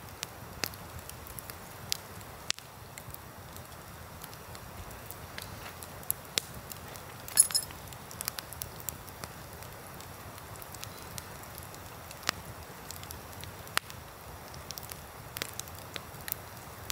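Wood campfire burning, crackling with scattered sharp pops, the loudest about seven seconds in, over a steady low rushing noise.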